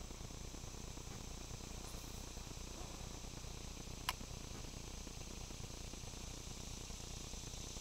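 Steady high-pitched chorus of insects chirring, over a low steady rumble, with a single sharp click about four seconds in.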